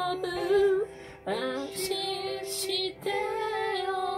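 A singing voice holding long, wavering notes of the song's closing phrase, with no words picked out, breaking briefly about a second in and again near three seconds.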